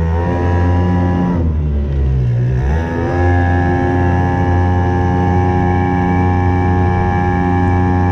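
HangKai 3.6 HP gas outboard motor running with the kayak under way. Its pitch drops about a second and a half in as the revs fall, comes back up about three seconds in, then holds steady.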